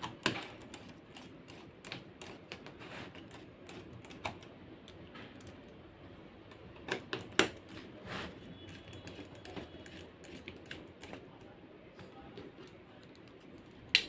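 Light scattered clicks and taps of a small hand screwdriver working screws into a laptop's metal hinge bracket, with a few sharper clicks about seven seconds in.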